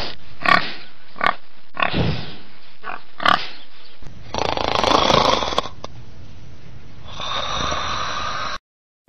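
Piglets oinking: short squealing calls about every half second for some four seconds, then a longer, noisier stretch of sound that cuts off suddenly near the end.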